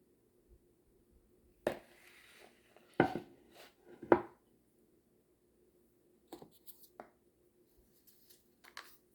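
Open-mouth chewing: wet smacks and crunches of food in the mouth. A cluster of loud, sharp ones falls between about two and four seconds in, then fainter clicks follow near the end.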